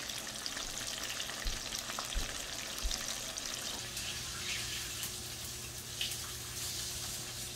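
Floured snapper pieces frying in oil in a pan: a steady sizzle with small scattered pops and crackles. About four seconds in, a low steady hum joins.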